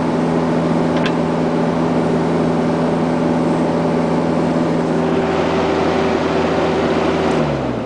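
Excavator's diesel engine running steadily while digging, its note shifting about five seconds in, then falling in pitch and dying down near the end as the machine is throttled down or shut off.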